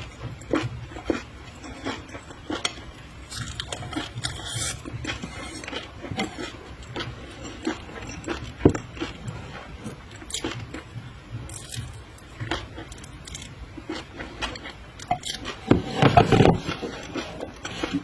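Close-miked eating of raw seafood: wet chewing and biting with many small sharp clicks, and a louder stretch of chewing near the end.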